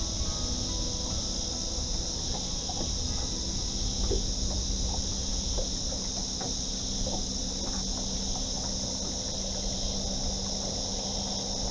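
Steady high-pitched drone of insects from the shoreline trees, with a low rumble underneath.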